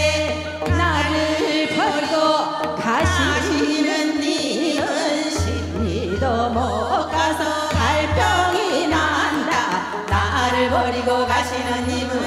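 Seodo sori, Korean folk singing of the northwestern provinces: a woman sings a wavering, heavily ornamented melody over instrumental accompaniment with repeated low bass notes.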